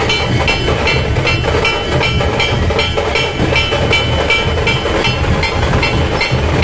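Procession band drumming: a metal hand cymbal clashes a steady beat about three times a second over the deep drums.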